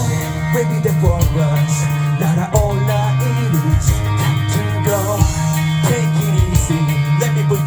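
Live rock band playing a song through loudspeakers: electric guitars, bass guitar and drums, with a melody line sliding over a held bass and a steady cymbal beat.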